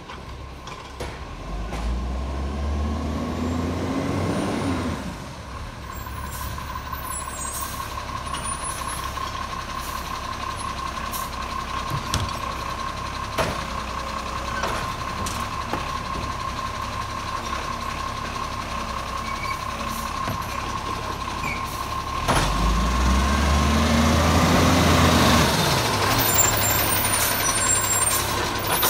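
Iveco Acco side-loader garbage truck's diesel engine pulling forward, its revs rising then falling twice as it moves off and draws up. A steady high warning tone sounds throughout, with a few short air-brake hisses.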